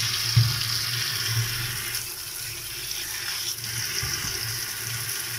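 Tap water running steadily into a stainless steel bowl as vegetables are rinsed under the stream by hand, with a short knock about half a second in.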